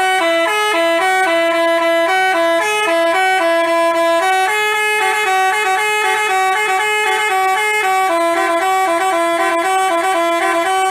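Basuri telolet musical bus horn playing a tune of short and held notes, changing pitch every fraction of a second, loud and without a break.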